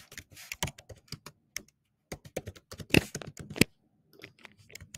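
Typing on a computer keyboard: irregular runs of key clicks, with two short pauses.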